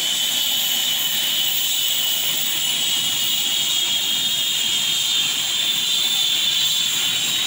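Twin-turbine Eurocopter EC135 helicopter running on the ground before take-off, its rotor turning: a loud, steady high-pitched turbine whine over a wash of engine and rotor noise.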